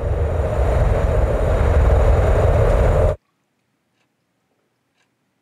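A loud rushing noise with a deep rumble swells slightly and cuts off abruptly about three seconds in. Near silence follows, with a faint clock ticking about once a second.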